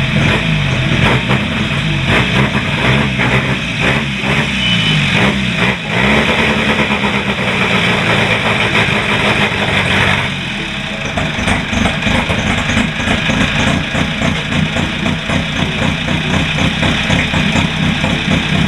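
1950 Crosley Hot Shot's small four-cylinder engine running just after a start, its speed rising and falling for the first several seconds. About ten seconds in it settles into a steadier idle with a slight lope.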